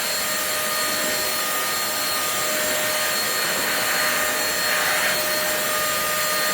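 Corded stick vacuum cleaner with a 400 W motor running steadily at full suction: a loud airflow hiss with a steady motor whine on top.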